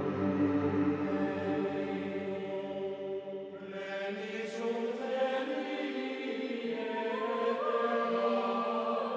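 Buddhist chant music: voices holding long, slowly changing notes.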